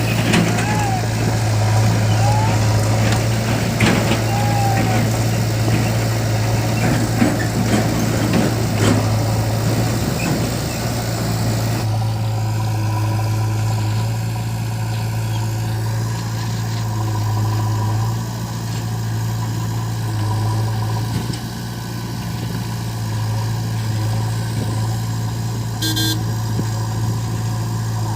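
Diesel engine of heavy machinery running steadily with a low, even drone. The background changes abruptly about twelve seconds in.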